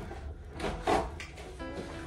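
Background music, with a short thump about a second in.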